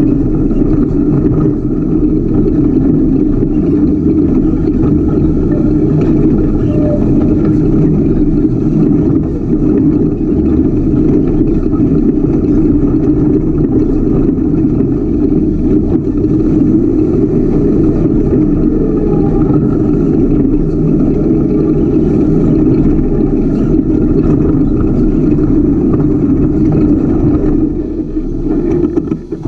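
Ultra4 off-road race car's engine running loud and steady as the car drives, heard close from the car itself. The level dips briefly near the end.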